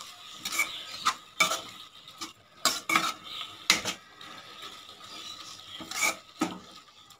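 Steel spatula stirring a moist grated-beetroot mixture in a non-stick kadai, scraping and knocking against the pan at irregular moments, about eight strokes in all.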